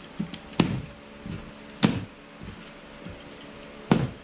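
Three sharp knocks, a little over a second and then about two seconds apart, as the radiator's shipping box is handled and opened. A faint steady fan hum runs underneath.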